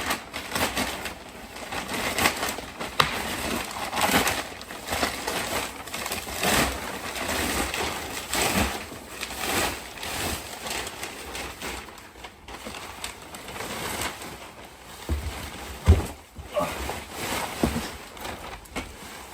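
Packaging being torn and pulled off a body-kit bumper: irregular rustling and crinkling, with a sharp knock about 16 seconds in.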